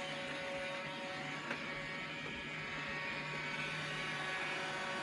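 iRobot Roomba 560 robot vacuum running in its regular cleaning mode: a steady whirring hum from its vacuum motor and brushes, with one light click about a second and a half in.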